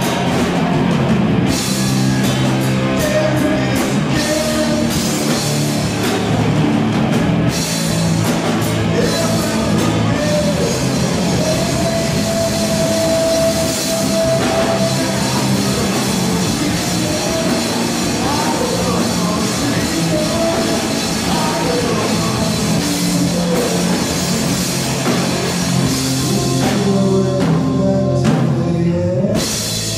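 Rock band playing live: drum kit and electric guitar in a dense, loud, steady wall of sound.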